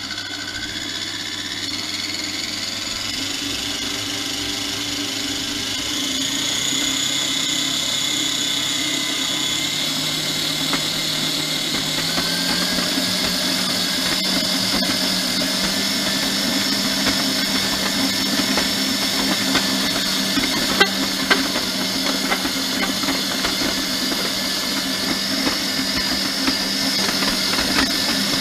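Electric stand mixer's motor running steadily while kneading yeast dough for pizza, its pitch stepping up about six seconds in and again about twelve seconds in. A few light knocks come in the second half.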